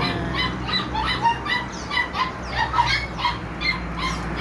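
Several dogs barking and yapping in quick, overlapping high-pitched barks, several a second: an excited greeting as their owner arrives.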